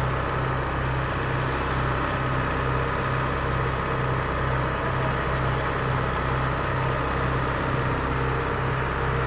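Heavy diesel engine of road-paving machinery running steadily, a constant low drone that does not change.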